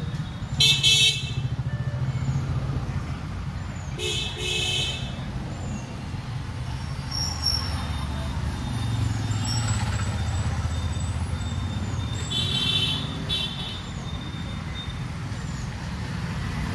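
Road traffic running steadily, with vehicle horns honking four times: once near the start, once about four seconds in, and twice in quick succession about twelve seconds in.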